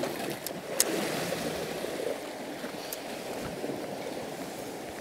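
Sea water washing and lapping against rocks in a steady rush. A few short sharp clicks come through it, the loudest just under a second in.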